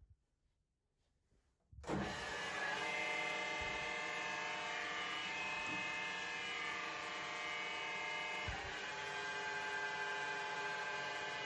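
Colchester Chipmaster lathe starting up suddenly about two seconds in, then running steadily with a hum of several steady tones from its variable-speed headstock drive. About eight and a half seconds in there is a short knock and the tones shift slightly.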